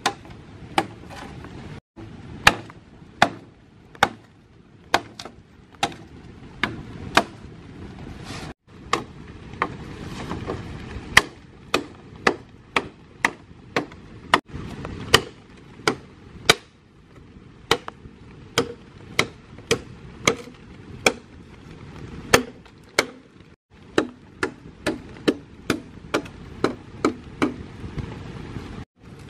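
Machete blade chopping into a green bamboo pole: a long run of sharp blows, about one a second at first and nearer two a second in the second half, cutting an opening into the bamboo to make a water pipe.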